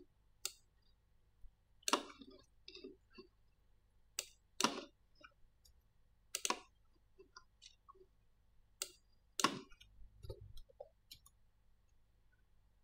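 Computer mouse clicks and keyboard key presses, a dozen or so sharp clicks at irregular intervals, stopping about eleven seconds in.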